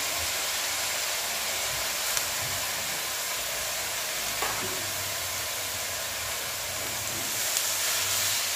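Steady sizzling of freshly washed, chopped fenugreek (methi) leaves going into a steel pan of hot oil and fried onion-ginger-garlic paste, with a few light clinks of utensils. A spatula stirs the leaves near the end.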